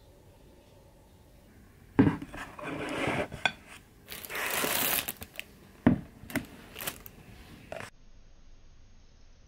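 Meal handling sounds: plastic packaging crinkling, then a fork clinking against a plate a few times.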